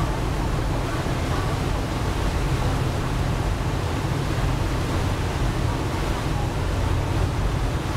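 Steady low rumble of a ferry's engines under a rush of wind and water, heard on board the moving ferry.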